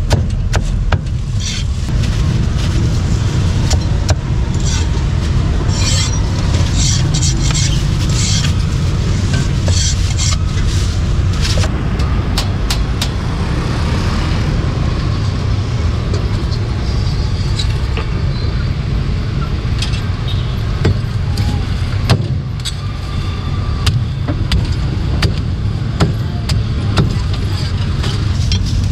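Meat cleaver chopping roast pork on a thick wooden chopping board: irregular sharp knocks, coming thick in the first dozen seconds and sparser after. Under them runs a steady low rumble of street noise.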